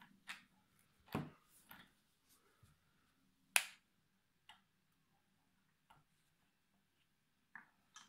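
Scattered sharp clicks and light taps from a hand working the plastic controls of an ultrasonic cool-mist humidifier, the loudest about halfway through as its push button is pressed. A faint steady tone comes in near the end as the mist starts.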